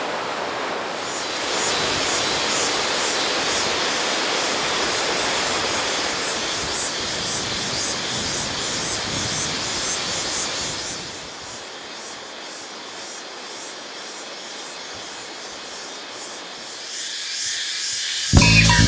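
Jungle ambience: rushing river water with a shrill, pulsing cicada chorus above it. About eleven seconds in the water noise drops away, leaving the cicadas fainter, and music with bass and drums starts right at the end.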